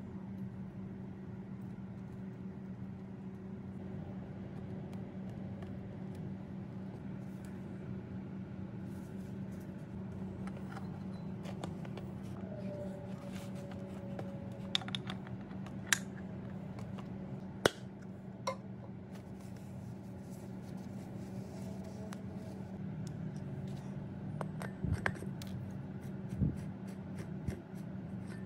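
Metal parts of an electric saw being handled and fitted together: aluminium housing pieces, gears and small hardware giving a handful of sharp clicks and clinks, mostly in the second half, over a steady low hum.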